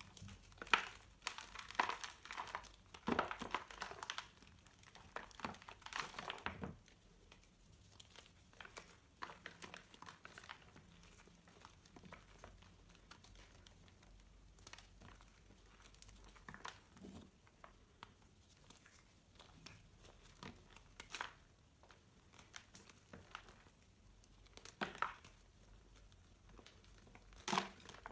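Reformed gym chalk blocks crumbling and crunching as hands squeeze and break them apart, with dense crackling for the first several seconds, then sparser crunches and two louder ones near the end.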